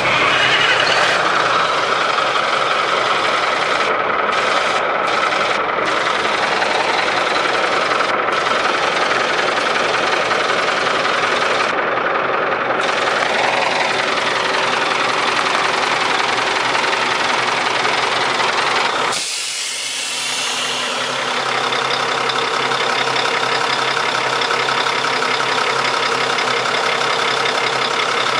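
1992 Mack RD600 dump truck's Mack E6-300 inline-six diesel engine idling steadily, with a brief dip in level about two-thirds of the way through.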